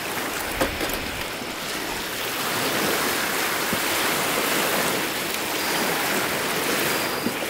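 Lake waves washing against the shore, a steady rushing that swells a couple of seconds in, with a few faint sharp crackles from a small wood fire in a metal fire box.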